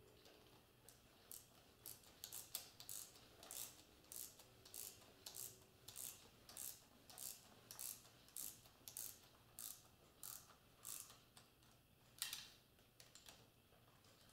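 Quarter-inch drive ratchet clicking with each back-swing as the 10 mm bolts of a Kawasaki KZ650 cam chain tensioner are run down. The clicks are faint and come in a steady run of about two a second, pausing briefly near the end before a few more.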